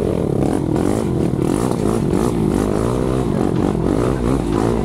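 Suzuki LTR 450 quad's single-cylinder four-stroke engine running and being revved, its pitch rising and falling again and again.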